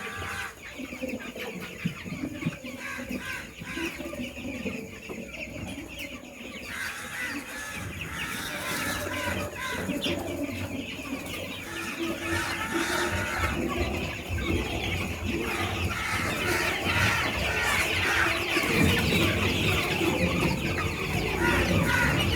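A flock of 17-day-old chickens cheeping and clucking all together in a dense chorus, growing louder over the stretch.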